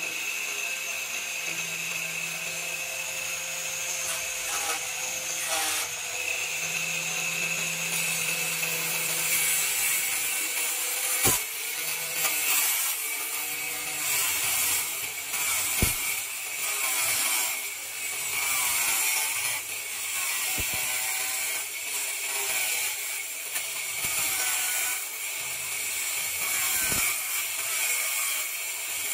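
Angle grinder mounted as a homemade sliding cut-off saw, its abrasive cut-off disc running with a steady high whine and grinding through metal, the grinding noise swelling and wavering as the disc is fed into the cut. A few sharp clicks stand out along the way.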